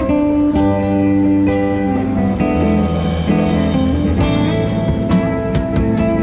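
Live band playing an instrumental passage: electric guitar notes over a drum kit keeping a steady beat, with a cymbal wash from about two seconds in until about four seconds.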